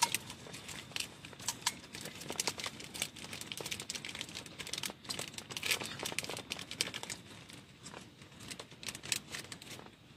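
Plastic crinkling and rustling: a dense, irregular run of sharp crackles that thins out near the end.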